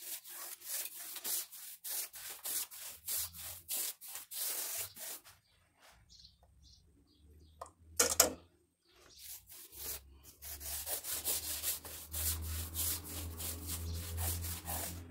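Quick, repeated strokes of a bristle paintbrush scrubbing a homemade nopal-mucilage wash onto a rough plaster wall. The brushing stops a little after five seconds in, a single sharp knock follows, and the strokes resume soon after.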